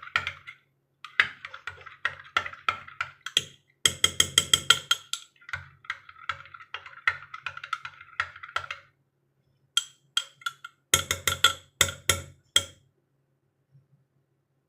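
A spoon stirring honey into juice, clinking rapidly and repeatedly against the sides of the container with a ringing tone. The stirring pauses briefly a few times and stops near the end.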